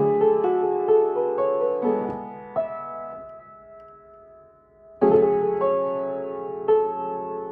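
Piano playing a slow phrase of held notes and chords. The phrase fades almost to quiet around the middle, and a new loud chord starts about five seconds in.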